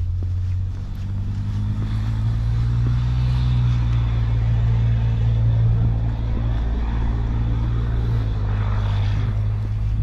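A low, steady engine drone from a motor vehicle, with a hiss building up near the end.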